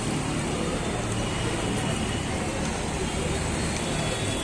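Steady street ambience: traffic noise with a low engine hum, and indistinct voices of a crowd of people talking.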